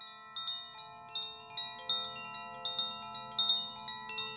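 Chimes ringing: bell-like tones struck one after another at uneven moments, each ringing on and overlapping the others.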